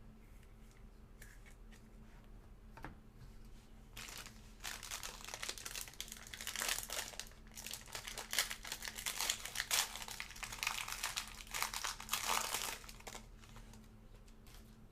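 Trading-card pack wrapper being crinkled and torn open, a stretch of dense crackling that lasts about nine seconds.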